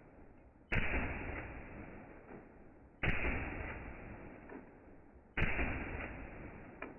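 Steyr AUG 5.56 rifle firing three shots about two and a half seconds apart, played in slow motion, so each report starts sharply and fades away slowly.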